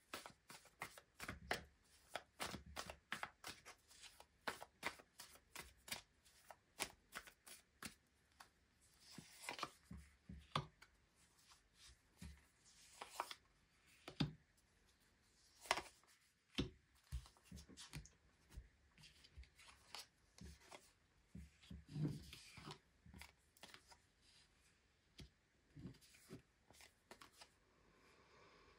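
Faint shuffling of a tarot deck by hand: a quick run of soft card clicks for the first several seconds. Then sparser card slides and taps as cards are drawn and dealt out.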